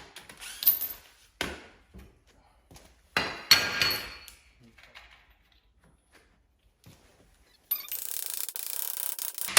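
Metal tools and parts clanking and clinking as motorcycle handlebars are unbolted, with one louder metallic clank that rings briefly. A steady hissing noise starts near the end.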